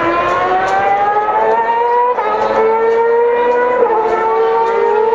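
A 2012 Formula One car's 2.4-litre V8 accelerating hard. Its high-pitched note climbs steadily through the revs, with two quick upshifts about two and four seconds in.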